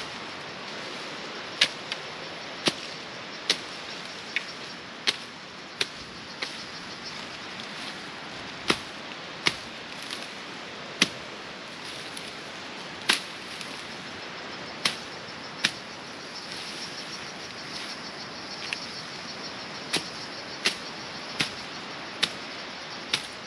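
Wood being chopped by hand with a blade: about twenty sharp strikes at an uneven pace, often less than a second apart and broken by short pauses, over a steady outdoor hiss.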